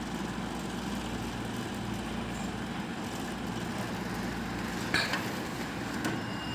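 Split air conditioner indoor unit running with a steady vibrating hum, the noise of a loose panel not held by its locks. A brief click about five seconds in.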